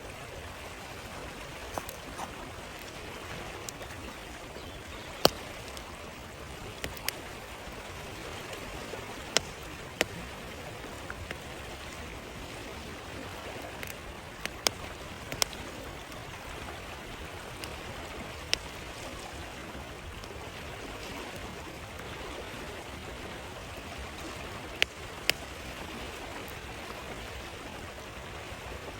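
Steady rush of a flowing stream, with irregular sharp pops and crackles from a wood campfire, the loudest about five seconds in.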